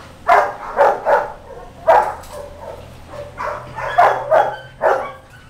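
Dog barking repeatedly: about nine short barks, several in quick pairs.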